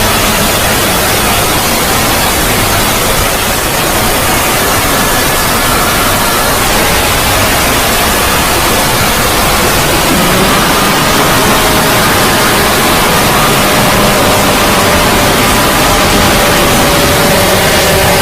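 Loud, steady static-like noise with faint wavering tones running through it: a heavily distorted 'void' logo sound effect.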